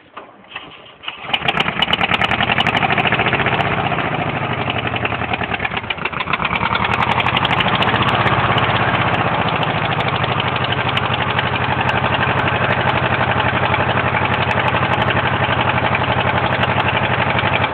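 1974 VW Super Beetle's air-cooled flat-four engine cranking, catching about a second in, then running with a fast, even knock that the owner calls rod knocking, a worn connecting-rod bearing. The engine dips briefly around five seconds in and then picks back up.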